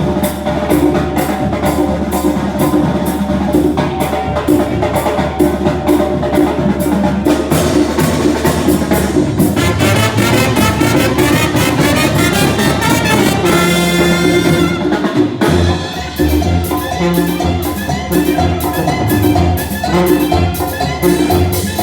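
Live banda music: a brass band with drums playing an instrumental passage to a steady beat, with a quick run of high notes about two-thirds of the way in.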